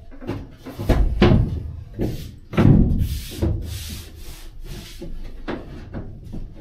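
A plywood lining panel being pushed and shifted into place against a van's sheet-metal cargo wall: irregular knocks, thumps and scraping, loudest about a second in and again near three seconds, then lighter scrapes.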